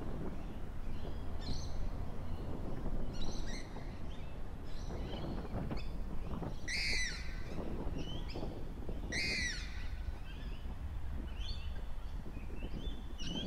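Birds calling: a scatter of short chirps, with two louder, arching calls about seven and nine seconds in, over a steady low rumble.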